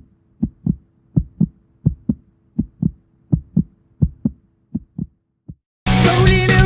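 Heartbeat thumping in steady lub-dub pairs, about one pair every three-quarters of a second, over a faint hum. It stops about five and a half seconds in, and loud rock music cuts in just after.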